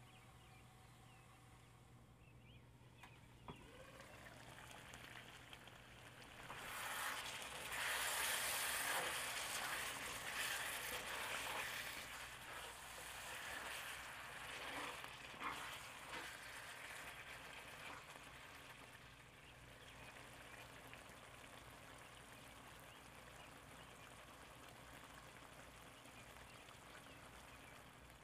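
Meat and tomatoes sizzling and bubbling in a stainless steel pan. From about seven seconds in, a spatula stirs and scrapes through the meat and the sound gets louder for a few seconds, then settles back to a steady simmer.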